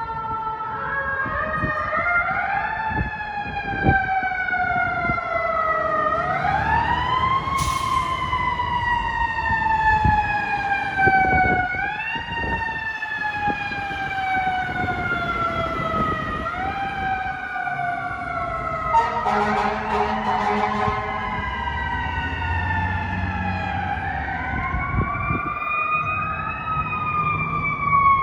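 Fire truck sirens wailing, each sweep rising quickly and then falling slowly, repeating every few seconds, with two sirens overlapping out of step. An air horn blasts briefly about two-thirds of the way through, over the low rumble of the truck engines.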